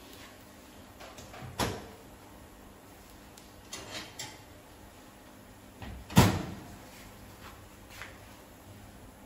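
Several knocks and bumps from kitchen work: two louder ones about one and a half and six seconds in, the second the loudest, with a few softer clacks between and after.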